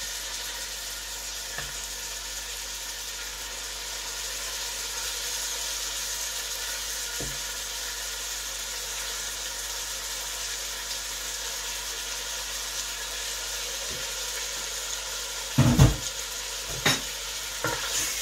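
Mutton pieces sizzling steadily in hot desi ghee in a stainless steel pot. Near the end there are a few loud knocks as a wooden spoon starts stirring the meat against the pot.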